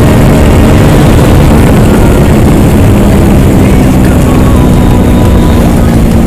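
Hero XPulse 200's single-cylinder engine running steadily at cruising speed, its loud exhaust note heard from the rider's seat.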